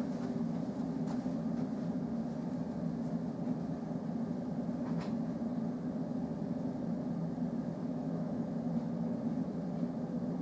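A steady low rumble, with two faint sharp clicks: one about a second in and one about halfway through.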